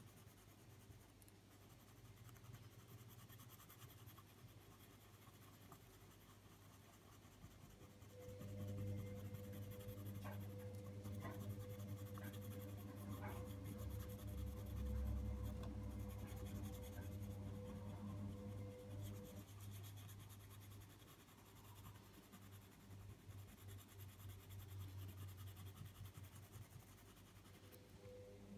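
Coloured pencil tip rubbing faintly over paper, working fine pencil dust into the drawing to blend it. A low steady hum comes in about eight seconds in and stops about two-thirds of the way through, with a few light ticks along the way.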